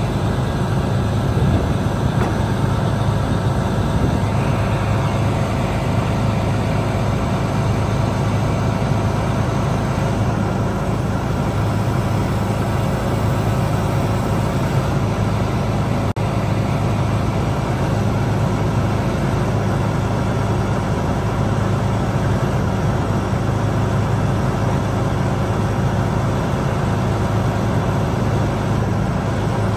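Freightliner Columbia truck's Detroit Series 60 six-cylinder diesel running steadily, driving the hydraulics of a HIAB 322E knuckleboom crane as the boom is folded in.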